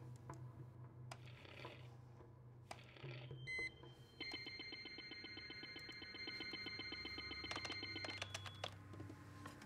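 Computer beeps over a low steady hum. A few soft clicks and short swishes come first, then a short high beep about three and a half seconds in, then a steady electronic tone with a fast flutter beneath it for about four seconds, ending in a few clicks.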